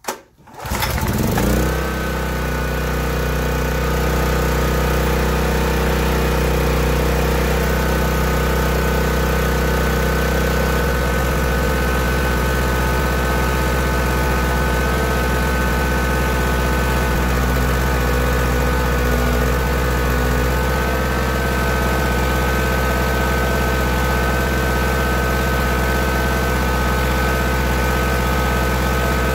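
Portable generator's small single-cylinder gasoline engine pull-started, catching about a second in and then running steadily.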